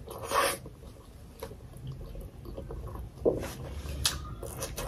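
A short slurp from a spoonful of tomato achar near the start, then chewing and soft mouth sounds with a few light clicks of a metal spoon against a plate.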